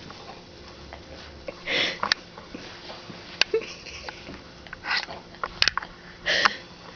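Snoring breaths of a sleeper: three short, hissing breaths, about two seconds in, about five seconds in and near the end, with a few small clicks between them.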